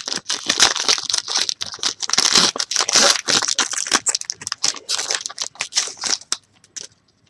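Foil wrapper of a basketball trading-card pack crinkling and tearing as it is ripped open by hand, a dense crackle that stops near the end.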